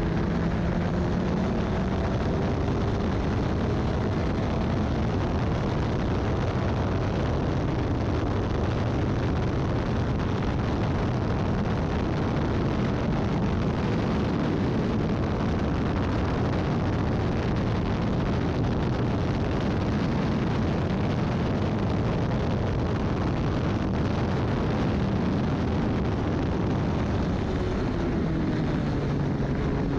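Formula Ford race car at racing speed: the engine runs hard under a dense, steady rush of noise. Near the start and again near the end the engine note falls and then climbs.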